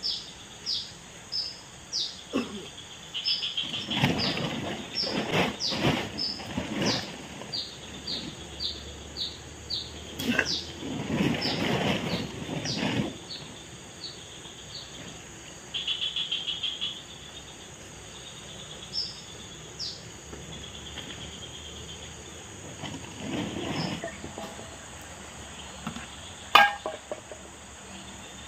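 Tropical forest at dawn: a bird repeats a short, high, falling chirp about twice a second through the first half, with louder, lower calls twice in between. Insects buzz steadily underneath, with a short buzzy burst partway through and a single sharp click near the end.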